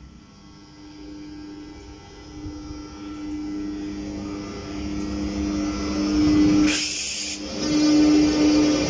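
Slovak class 362 electric locomotive pulling a passenger train away and passing close by: a steady electric hum with a pitched tone that grows louder as it approaches. There is a short hiss about seven seconds in, and the coaches rumble on the rails near the end.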